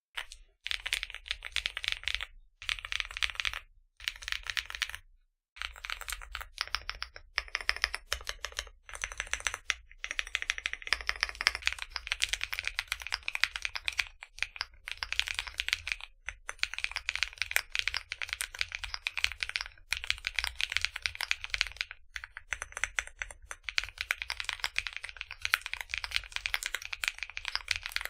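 Typing on a custom 60% keyboard with AKKO Creamy Blue Pro V5 tactile switches in a Tofu60 Redux case: rapid keystrokes in short bursts with brief pauses at first, then steady fast typing from about five seconds in.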